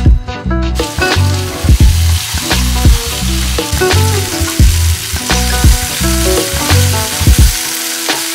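Food sizzling as it fries in a pan, a steady hiss that begins about a second in, under background music with a steady beat.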